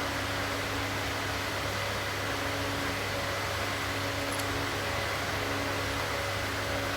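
A small electric motor humming steadily, with a faint constant whine above the hum.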